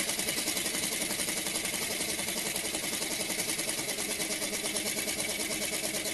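Small single-cylinder rotary-valve model steam engine running on compressed air at a steady speed: a rapid, even beat of exhaust puffs and working parts. It is freshly built and still needs running in.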